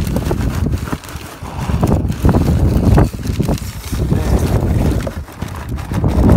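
Wind noise on the microphone, rising and falling in gusts, with the crinkle of a plastic bin liner as a hand rummages through a litter bin.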